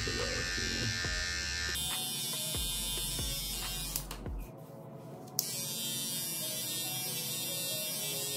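Electric hair trimmer buzzing steadily as it edges the hairline along the forehead. The buzz drops away for about a second and a half midway, then starts again.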